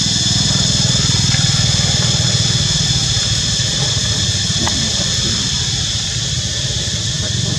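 A steady low, engine-like rumble with a fast, even pulse, under a constant high-pitched buzz.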